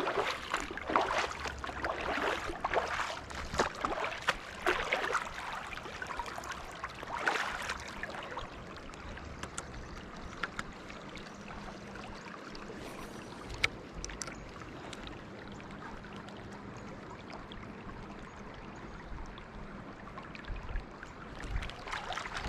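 Shallow river water running in a steady rush, with irregular louder splashes and swishes over the first seven or eight seconds before it settles to the even flow.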